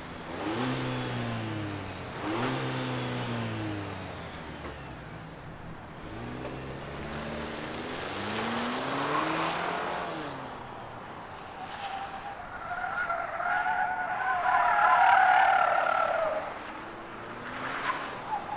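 The 2023 Chevrolet Colorado Z71's 2.7-litre turbocharged inline-four accelerates hard, its note climbing and dropping back through several upshifts of the 8-speed automatic. About twelve seconds in, the tyres squeal for several seconds as the truck turns; this is the loudest part.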